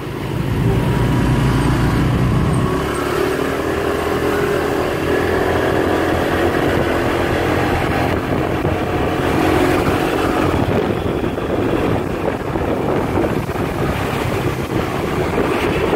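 Motorbike ride through traffic: the bike's engine hums steadily, rising and falling a little in pitch with the throttle, over wind rumble on the microphone and the noise of cars passing close by.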